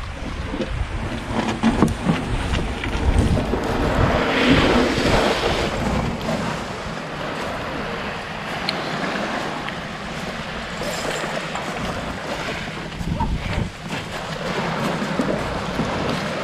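Small waves washing on the shore, with wind rumbling on the microphone, loudest in the first few seconds. A few short knocks and scrapes come from an outrigger boat being handled and pushed into the water.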